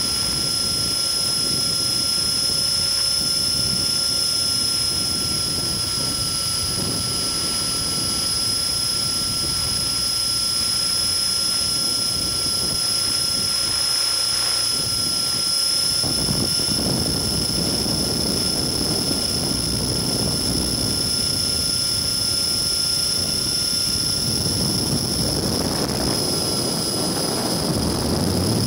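Align T-REX 600E electric RC helicopter heard from a camcorder mounted on the airframe in flight: a steady high whine from the motor and gear drive over the rushing of the rotor. The low rushing swells about halfway and again near the end.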